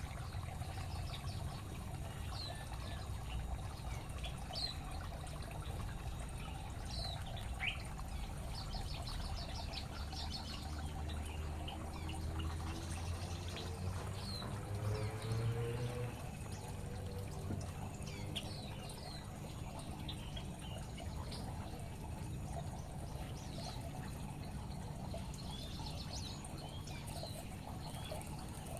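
Aviary ambience: water trickling steadily while small birds give short, high chirps now and then. Near the middle a low droning tone rises in pitch, then stops abruptly.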